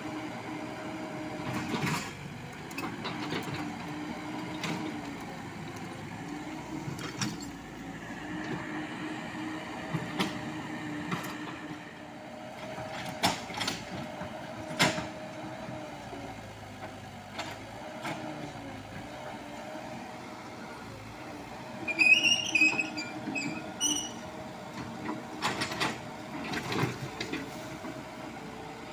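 Komatsu PC78US mini excavator's diesel engine running steadily as it digs, with repeated sharp knocks and clanks of the bucket striking soil and rock. A brief burst of high-pitched squeaks comes about two-thirds of the way through.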